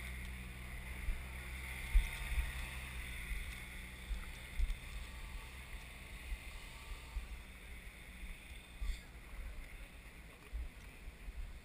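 Low wind rumble and irregular knocks on a body-worn camera's microphone as the wearer walks, with a faint background murmur of people around.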